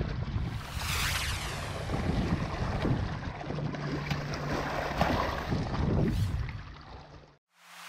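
Wind buffeting the microphone over small waves lapping against shoreline rocks, with a brief whoosh about a second in; the sound cuts off abruptly near the end.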